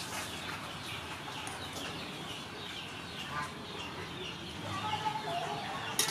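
Chickens clucking, with many short high calls throughout and a louder, clearer call about five seconds in. A single sharp click comes near the end.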